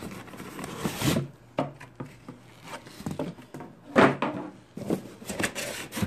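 Cardboard packaging being handled: flaps and inserts of a shipping box scraping and knocking as a hand pushes them aside, with the loudest scrape about four seconds in.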